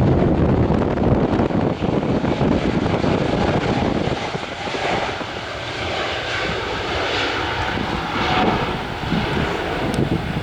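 Airliner engines running loud as the plane passes. The sound is a heavy low rumble at first, shifting to a higher rushing hiss after about four seconds as the aircraft moves on.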